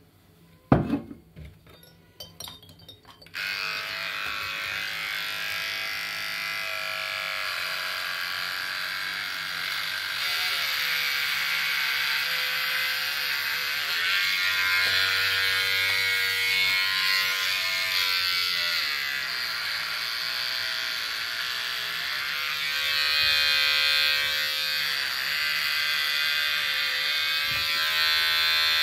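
A sharp snap about a second in as a glass beer bottle is opened, a few small clicks, then corded electric hair clippers switch on and buzz steadily, the pitch dipping briefly now and then as they run through hair.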